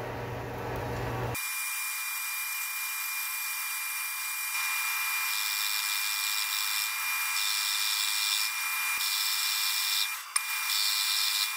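Atlas lathe turning a chuck backplate while a boring bar cuts the register inside its bore: machine running with a steady high whine. About a second in, the low hum drops away abruptly; from the middle on come several stretches of louder hissing cutting noise.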